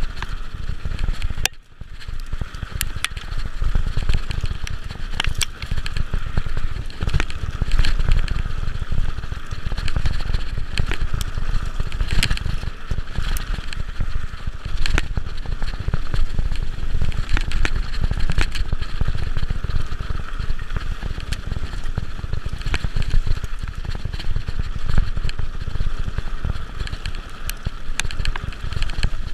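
Mountain bike riding fast down a rough trail of dry leaves and stones: a steady low rumble with frequent clicks and rattles from the tyres and bike. The sound drops out briefly about a second and a half in.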